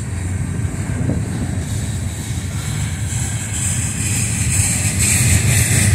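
Freight cars of a mixed freight train rolling past close by: a steady rumble of steel wheels on rail. A hiss builds up about halfway through.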